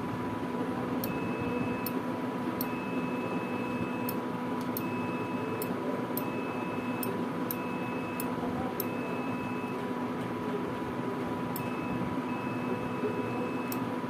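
Multimeter continuity beeper sounding in a string of high beeps, each about half a second to a second long and starting and stopping with a click. Each beep marks the probes finding a closed circuit across the flow switch's contact terminals. A steady hum runs underneath.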